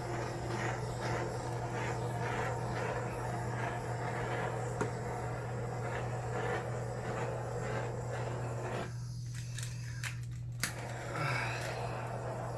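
Handheld butane torch running with a steady hissing flame, over a constant low hum. About nine seconds in the flame cuts out for a second or so, then comes back after a sharp click. The torch is faulty and acting up.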